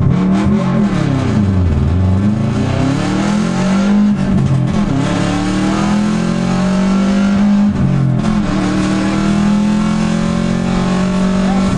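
Subaru Impreza 2.0-litre turbocharged flat-four rally engine accelerating hard from a standing start, heard from the front grille. The pitch rises and drops back with each upshift, several times in the first eight seconds, then climbs more slowly under full load.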